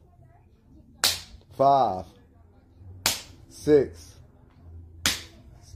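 A man slapping himself across the face with his hand: three sharp slaps about two seconds apart.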